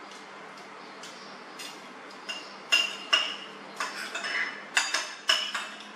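Metal spoon and fork clinking and scraping against ceramic bowls while eating. The first two seconds are quiet, then comes a quick run of sharp clinks with a short ring.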